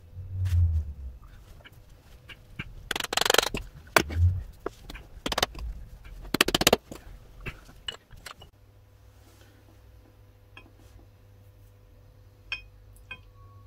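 Polyurethane leaf-spring bushes being greased and worked into a leaf-spring eye: two squeaky, rubbery rasps about three and six and a half seconds in, among a few knocks and thumps. Then small light clicks of metal spring plates being handled.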